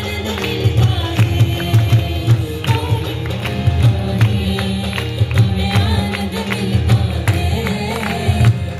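Choir singing a worship song to instrumental accompaniment, with heavy sustained bass notes and a steady percussion beat.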